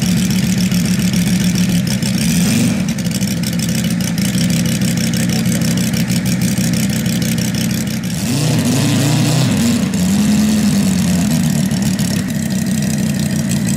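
Moki 250 five-cylinder radial engine of a large-scale RC Boeing Stearman model idling steadily on the ground. About eight seconds in it is briefly revved, its pitch rising and wavering for a couple of seconds, then settles back to idle.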